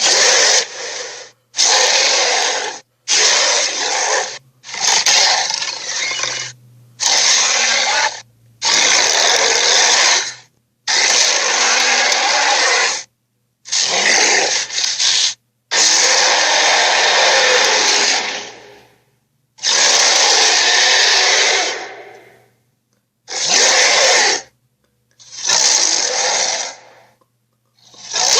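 Sharptooth Tyrannosaurus roar sound effects: about a dozen rough, raspy roars of one to three seconds each, separated by short pauses, some trailing off slowly. A faint low hum lies underneath.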